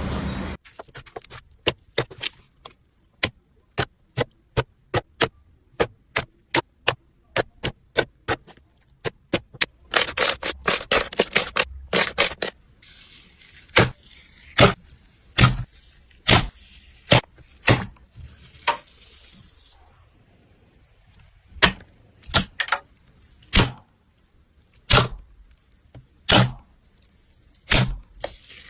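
Slime being pressed and poked, trapped air popping in a run of sharp clicks, about two a second at first. A burst of dense crackling comes around the middle, then fewer, louder pops with quiet gaps between them.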